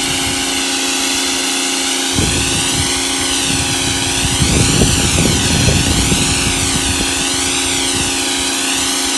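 Sun Joe SPX3500 electric pressure washer running, its motor humming steadily under the hiss of the spray. The hiss wavers up and down in pitch. From about two seconds in, water spatters against a surface, heaviest around the middle.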